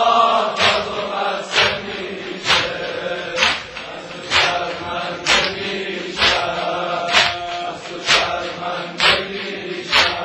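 A crowd of male mourners chanting a Shia noha together over a sharp, steady slap about once a second, the beat of chest-beating (sineh-zani).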